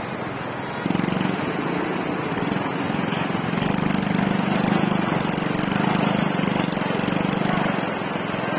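Small motorcycle engine running steadily under load, louder from about a second in, as its wheels splash through a shallow, rocky river crossing.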